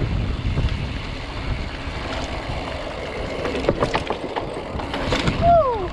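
Mountain bike riding down a bumpy dirt trail, heard from a handlebar-mounted action camera. Wind rumbles steadily on the microphone while the bike rattles over the bumps, with a few sharper knocks around four to five seconds in.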